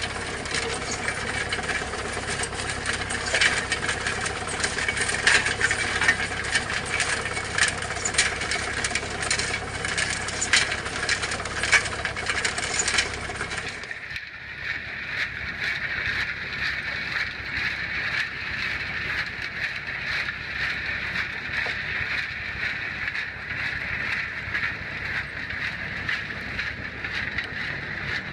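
Compact trommel screen running, its engine going steadily while stones clatter in the spinning screen drum as rapid, irregular clicks. About halfway through the sound changes abruptly: the low rumble drops away and the clicking and rattling go on.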